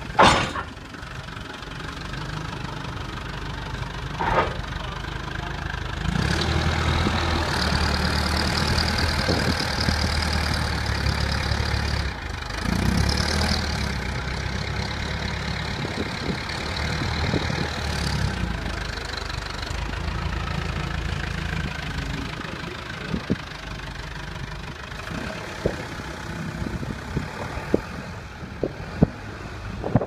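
A forklift's engine running, revving up for several seconds and then dropping back, with scattered knocks and clunks of the woodchipper being shifted on the steel-and-timber trailer deck. There is a sharp bang at the very start.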